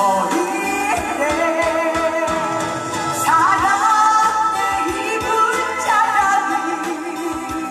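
Live singing of a Korean pop ballad over an instrumental backing with a drum beat, the notes held and wavering. The singer's voice is worn from a long run of performances.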